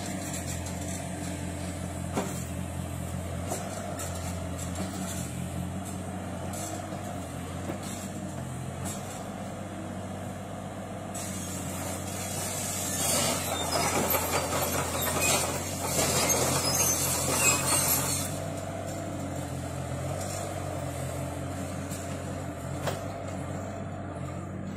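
Bobcat E37 mini excavator's diesel engine running steadily as the boom and bucket are worked, with a louder stretch of hiss and rattle about halfway through.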